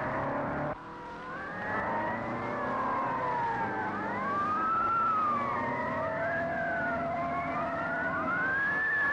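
Several emergency sirens wailing at once, their overlapping tones sliding slowly up and down in pitch. The sound drops abruptly in level just under a second in, then builds again.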